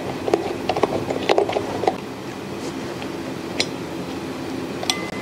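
Small metallic clicks and taps of a hex key working the mounting bolts of an inline skate frame fitted with angled wedge shims: a quick run of clicks over the first two seconds, then a few scattered ones, over a steady low hum.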